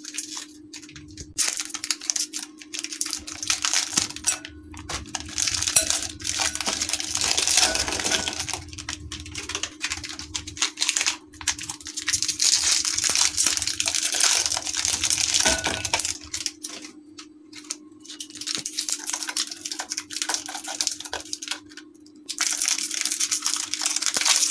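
Thin plastic biscuit wrappers crinkling and tearing as they are opened by hand, with biscuits clattering into a glass bowl. A steady low hum runs underneath.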